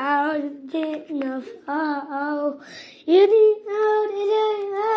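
A high, childlike voice singing a wordless 'oh-ah' tune in short phrases, then holding one long note from about three seconds in.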